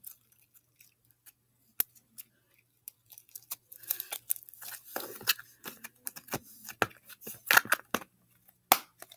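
Hands handling slime: irregular crackling and squishing from about three seconds in, with a few sharp clicks.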